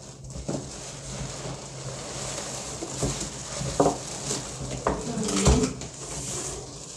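Plastic wrapping rustling and cardboard scraping as an air fryer is pulled out of its box, with a few knocks, the loudest about five and a half seconds in.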